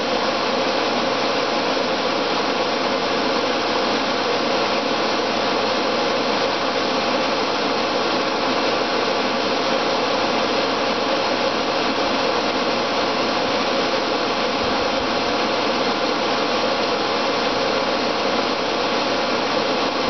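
Pool pump motor running: a steady, even whooshing hum that does not change.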